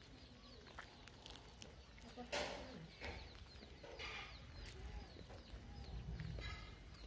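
Bird calls, among them fowl, with one louder call a little over two seconds in, over a low rumble.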